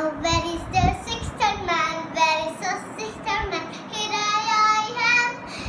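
A little girl singing a nursery rhyme in a high voice, holding longer wavering notes in the second half.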